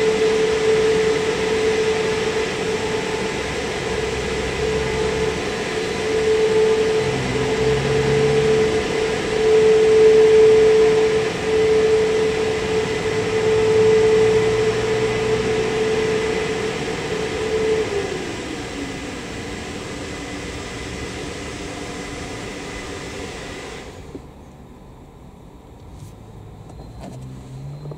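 Christ Aquatus Prime rollover car wash gantry running: a steady machine whine over an even hiss. About two-thirds of the way through, the whine winds down in pitch and stops, and a few seconds later the hiss cuts off suddenly, leaving a much quieter hum.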